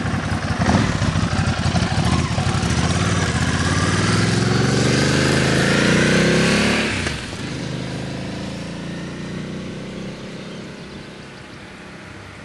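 Ducati S2R 1000's air-cooled L-twin through Termignoni carbon-fibre slip-on exhausts, accelerating past and away. Its pitch climbs for a few seconds, and the sound drops off abruptly about seven seconds in. After that the engine fades into the distance.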